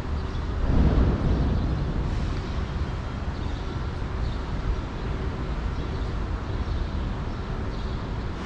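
City street ambience: a steady low traffic rumble with a brief louder swell about a second in.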